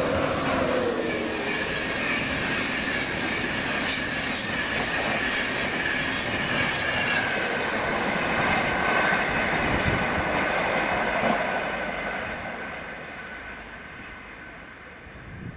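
Passenger train running through the station on the rails, with a high whine that slowly falls in pitch. A few sharp clicks come in the first seconds, and the sound fades away over the last few seconds.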